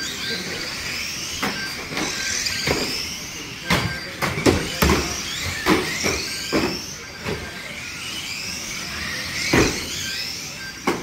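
Small electric radio-controlled stock cars racing on a carpet track: motors whining up and down in pitch as they speed up and slow down, with sharp knocks as cars hit each other and the barriers. The knocks come thickest around four to seven seconds in and again near the end.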